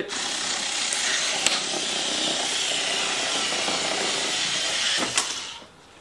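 WORX ZipSnip cordless electric cutter running steadily, its small rotary blade cutting through a plastic clamshell package, with a couple of sharp clicks; it stops about five and a half seconds in.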